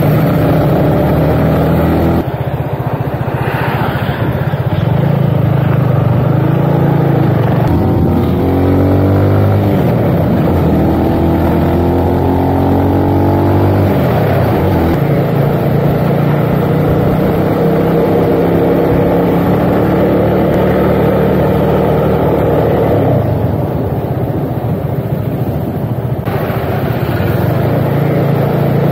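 Motorcycle engine running on the move, its pitch climbing and dropping as the bike speeds up and changes gear, with a long climb in the middle followed by a drop.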